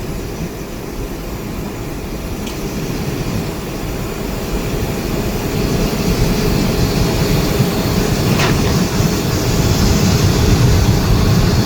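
Jet engine rumble of a Boeing 767 freighter, growing steadily louder, with a higher hiss building after about six seconds. A short sharp click comes about eight and a half seconds in.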